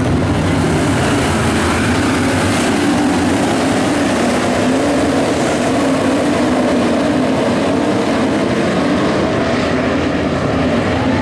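A field of IMCA Modified dirt-track race cars running at speed, their V8 engines merging into one loud, steady engine note whose pitch wavers up and down as the pack circles the track.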